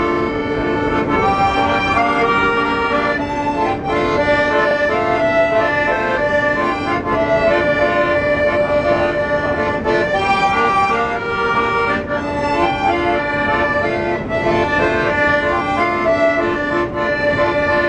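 An accordion playing a tune over chords, without a break.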